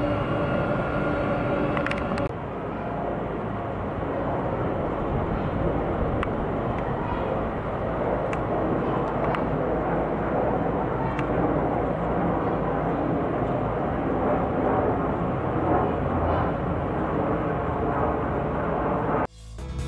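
Jet engines of narrow-body airliners climbing out overhead after takeoff: a steady broad roar, with a humming engine tone for the first two seconds. An abrupt change about two seconds in, then another jet's steady roar until the sound cuts off just before the end.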